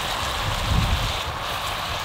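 Chunks of meat sizzling steadily in a cast-iron pot over a campfire. A low rumble, loudest a little under a second in, runs underneath.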